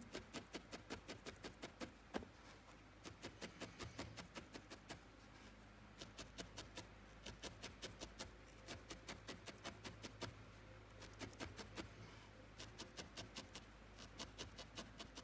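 Felting needle stabbing repeatedly into wool in dry needle felting: quick, faint ticks, about five a second, in runs broken by short pauses, as a small piece of wool is firmed into shape.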